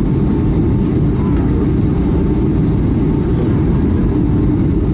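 Steady low rumble of engine and airflow noise inside the cabin of a Boeing 757-300 descending on approach with its flaps extended.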